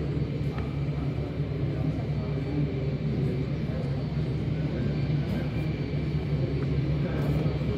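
Steady low engine rumble, with faint voices underneath.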